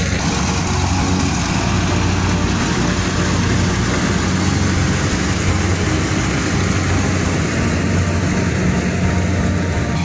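Kubota DC-70 rice combine harvester's diesel engine and machinery running steadily under load while harvesting, a constant drone.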